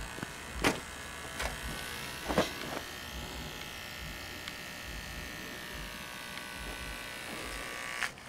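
Subwoofers wired directly to a 120-volt wall outlet, their cones driven by mains current and buzzing steadily, like an electric shaver. Several sharp cracks break in over the first few seconds, and the buzz cuts out briefly near the end.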